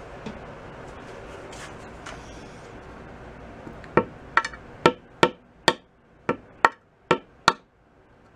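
Nine sharp taps about two to three a second, starting about halfway through, each with a brief ring: a glued wooden dowel being tapped into a hole in a solid maple snare drum shell to seat it flush.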